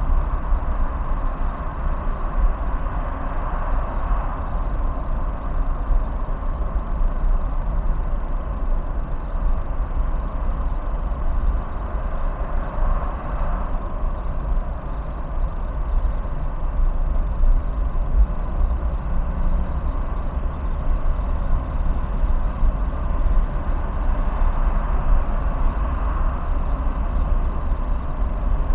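Steady road noise of a car driving at speed, heard from inside the cabin: a deep, constant rumble of tyres and engine with a hiss of rushing air on top.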